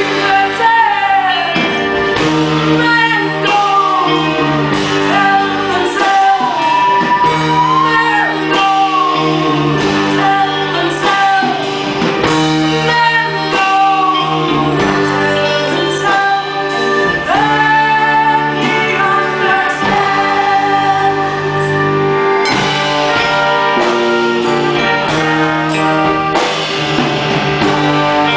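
Live band playing a song with a woman singing lead, over drums and guitar.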